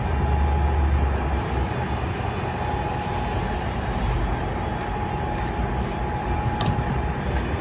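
Aerosol can of foaming glass cleaner hissing as it sprays onto window glass for about three seconds, over a steady low rumble.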